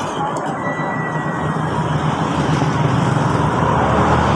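Passing road traffic: a motor vehicle's engine rumble that grows steadily louder.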